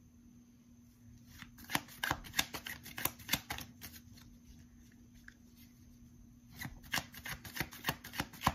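A worn deck of tarot cards being shuffled by hand: two bouts of quick crisp card clicks with a short pause between, over a faint steady hum.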